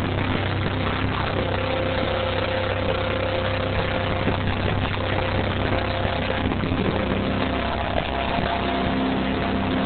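Live hard rock band playing loud, with held bass and guitar notes over a dense wash of sound, heard through a camera phone's microphone as a muddy, low-fidelity recording.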